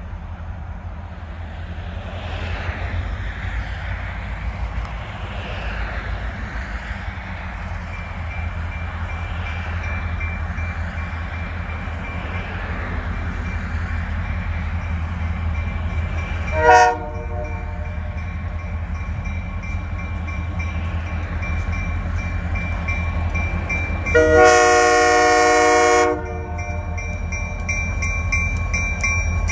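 Approaching diesel freight locomotives of the Great Lakes Central Railroad: a steady low engine rumble that grows as the train nears. The multi-note air horn gives a short blast about two-thirds in and a long, loud blast of about two seconds near the end, sounding for the road crossing.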